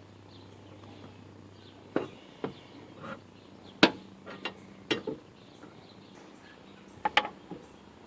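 Sharp metal clanks and knocks of a wrench and hand tools against the trailer's axle bolts and brackets: about eight separate strikes, some in quick pairs, the loudest about four seconds in.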